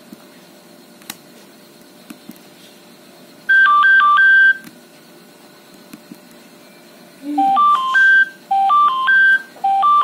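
Nokia 7610 playing previews of its built-in alert tones as the ringtone list is scrolled. About three and a half seconds in, a one-second pattern of two alternating electronic beeps plays ('Alarm high'). From about seven seconds a faster stepped beep pattern ('Alarm urgent') repeats three times. A faint keypad click comes before them.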